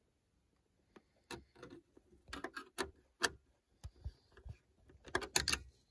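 Irregular sharp clicks and light taps of a hand tool working at the screws that hold a car stereo in the dashboard, starting about a second in and coming thicker near the end.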